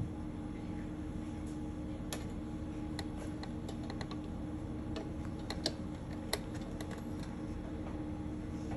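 Scattered light clicks, about a dozen at irregular intervals through the middle few seconds, over a steady low hum.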